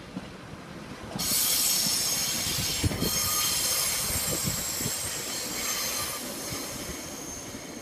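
Northern Class 142 Pacer railbus rolling past as it pulls in, with a high, steady squeal from its wheels on the rails that starts suddenly about a second in, over low knocks from the wheels running over the track.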